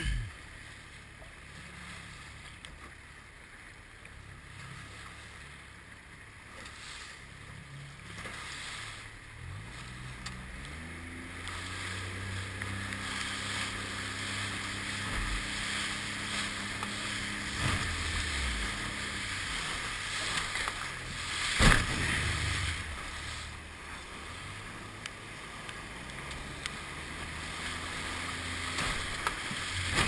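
Stabicraft aluminium boat's outboard motor running under rough-sea wind and water noise. The motor revs up about ten seconds in, holds a steady pitch for several seconds, then eases off. A sharp slap of water hits the boat about two-thirds of the way through, and the water noise grows louder toward the end.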